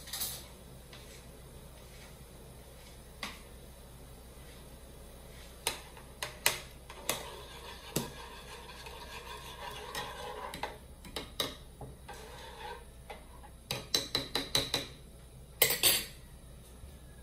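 Utensils clinking and tapping against a saucepan while seasoning is added to the broth: scattered sharp clicks, a quick run of taps about fourteen seconds in, and two louder knocks near the end.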